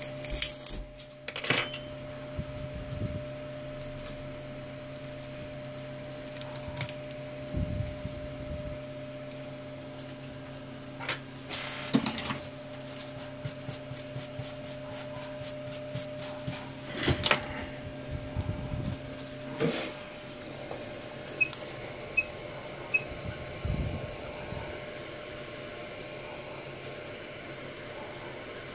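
Hot air rework station blowing with a steady hiss and a low hum; the hum cuts off about twenty seconds in. Over it come scattered clicks and scrapes of handling the phone's cracked touchscreen glass and tools on the work mat.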